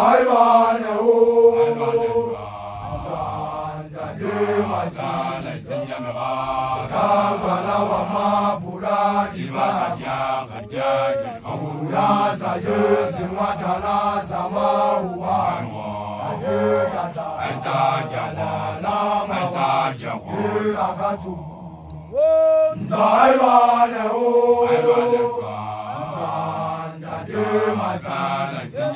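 A large group of young men chanting a song together in unison, Basotho initiates' group chant. About 22 seconds in, a loud rising call begins a new phrase and the group carries on.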